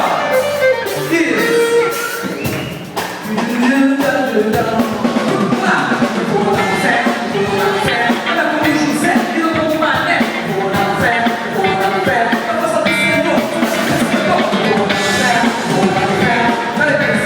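Live worship music: a band playing with singing, recorded in a large hall.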